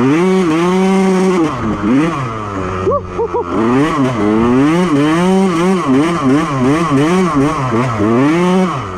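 Honda CR125 two-stroke single-cylinder motocross engine revving hard and dropping back again and again as the rider works the throttle through sand. It holds high revs for the first second and a half, falls away briefly around three seconds in, then surges and backs off about once a second.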